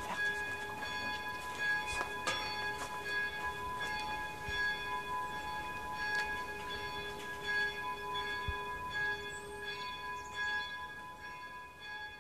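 Bells ringing: several bells sound together, with repeated strikes over a steady hum of overlapping tones, growing quieter near the end.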